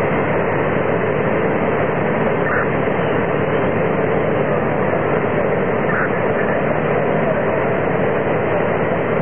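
Steady, loud drone of fire apparatus engines running at the fire scene, holding an even level throughout.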